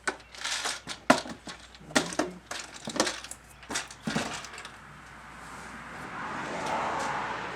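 Dashboard work: a quick run of sharp clicks, knocks and rattles as plastic dash parts and screws are handled, then a steady rushing hiss from about five seconds in.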